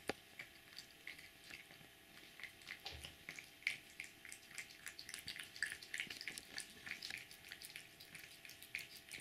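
Domestic cat eating from a plastic bowl: faint, quick, irregular little clicks and smacks of chewing and licking, with one sharper click right at the start.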